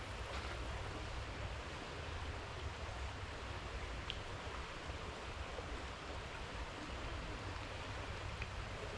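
Creek water running steadily, an even rushing hiss, with a faint click about four seconds in.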